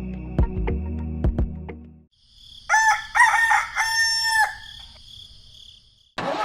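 A low steady hum with a few clicks that cuts off about two seconds in, then a rooster crowing once, in several syllables ending on a long held note.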